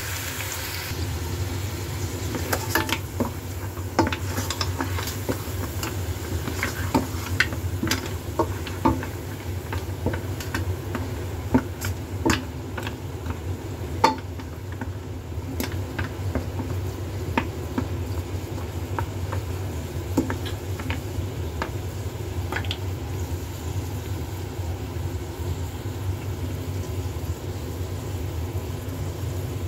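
Green mussel shells clicking and scraping against a stainless steel wok as they are stirred, over a steady sizzle and a low hum. The clicks come thick for the first twenty seconds or so, then thin out.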